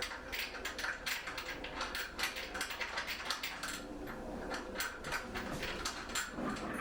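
Irregular light clicks and knocks of hardware and wooden parts being handled as a Newcomb Studio Loom is taken apart.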